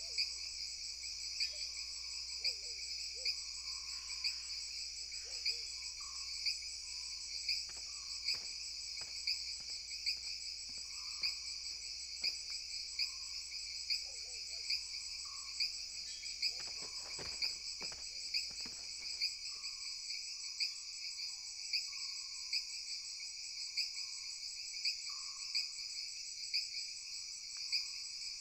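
A steady, high-pitched chorus of chirping insects that pulses with a louder beat a little more than once a second, with fainter, lower chirps scattered through it and a few soft clicks about two-thirds of the way in.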